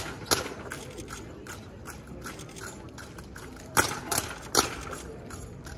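Drill rifles handled and slapped in unison by a drill team: a sharp clack about a third of a second in, then three more clacks in quick succession about four seconds in.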